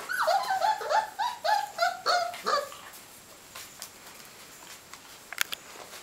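Four-week-old Hovawart puppies yipping: a quick run of about seven short, high calls in the first two and a half seconds, then quieter with a sharp click a little after five seconds.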